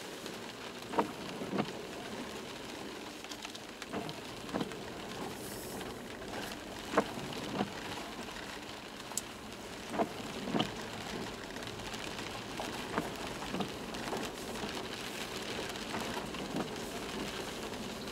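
Toyota Land Cruiser 120 on the move, heard from inside the cabin: a steady road noise with irregular sharp knocks and clicks every second or so.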